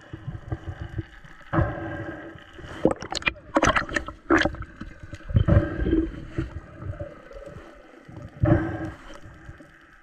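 Underwater sound through an action camera's housing: water rushing and gurgling, broken by a string of louder swishes and knocks, several of them bunched near the middle.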